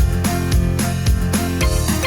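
Dance music with a steady beat, about two beats a second.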